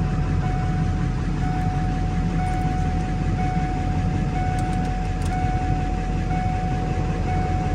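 Vehicle engine idling steadily: a low rumble with a steady high-pitched whine over it.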